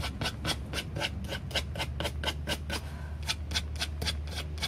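A nail file rubbed back and forth on a wooden board, sanding it by hand in quick, even strokes, about four to five a second, with a short pause about three seconds in.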